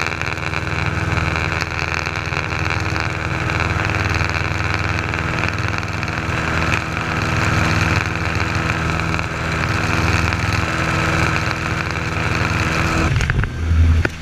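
Light aircraft's piston engine and propeller running steadily in flight, heard from inside the cockpit. A little before the end the sound changes abruptly, with a brief low thump.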